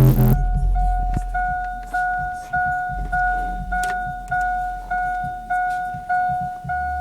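Loud bass-heavy music from the subwoofers cuts off just after the start. Then a single-pitch electronic warning chime from the 2004 Chevy Avalanche dings steadily about one and a half times a second, each ding fading before the next.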